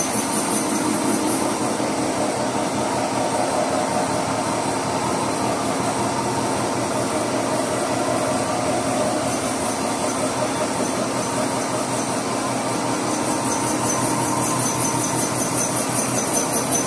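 Horizontal boring mill running steadily with its boring bar cutting the steel pin bore of a Caterpillar 950 Z-link.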